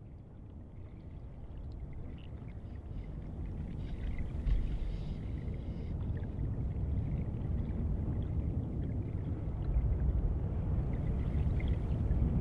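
A low, rumbling noise that swells steadily in loudness as it fades in, with a faint crackle of small high sounds over it.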